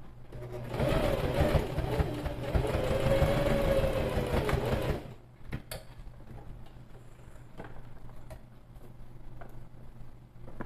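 Electric sewing machine stitching a seam in one fast steady run of about four seconds, then stopping abruptly. A few faint clicks follow.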